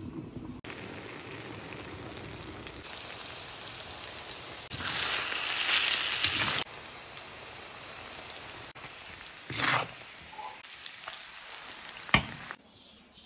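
Sliced wild mushrooms sizzling as they stir-fry in an iron wok. The sizzle swells louder for about two seconds in the middle, and a metal spatula scrapes and clinks against the pan, with a sharp clink near the end.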